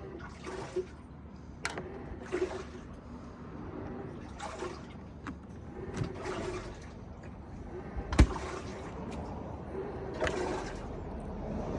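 Handling noises from working on a refrigerator door: repeated short rustling swishes and scattered sharp clicks, with one heavy thump about eight seconds in.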